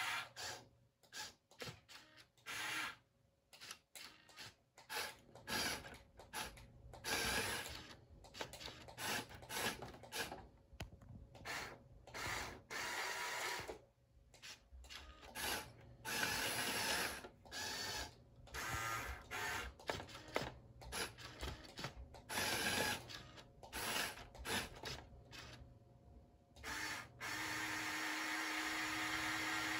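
Electric motors and plastic gear trains of the remote-controlled Happy Build YC-22012 brick-built heavy forklift whirring in many short stop-start bursts, with gear rattle, as it is driven and worked by remote control. Near the end the motors run on steadily.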